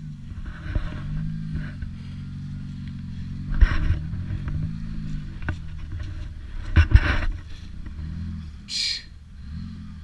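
Lada Niva engine revving up and down in low gear as the car climbs a rough forest track, its pitch rising and falling several times. Two loud thumps come a few seconds apart, about a third and two thirds of the way through.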